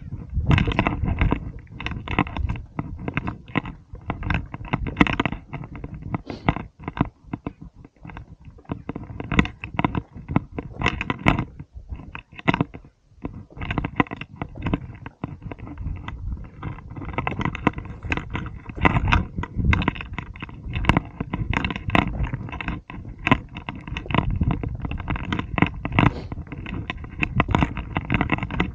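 Footsteps crunching and scraping on loose stones and rock as a hiker scrambles down a steep rocky slope, in an irregular, almost unbroken run of crunches over a low rumble, with a short pause about twelve seconds in.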